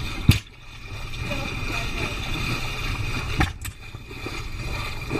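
Steady rush of wind and water on a sailing yacht under way, with a low rumble. Two sharp knocks sound, one at the very start and another about three seconds later.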